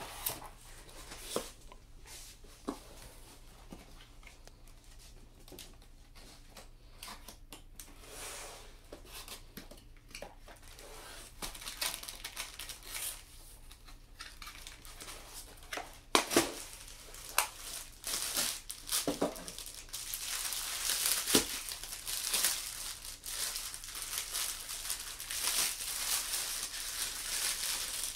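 A cardboard box being opened and handled, with a few light knocks, then the clear plastic bag holding the weighted hula hoop's foam-covered segments crinkling and rustling as it is pulled out and handled. The crinkling grows denser and louder in the second half, with a few sharp knocks.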